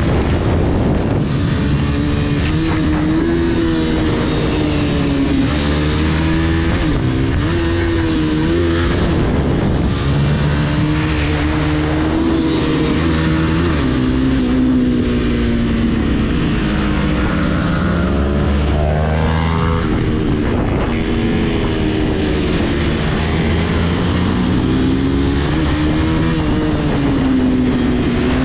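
Motorcycle engine running while under way, its pitch rising and falling smoothly with the throttle.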